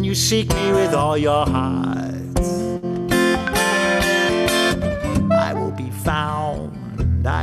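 Acoustic guitar strumming chords under a soprano saxophone playing a melody line with bending, sliding notes.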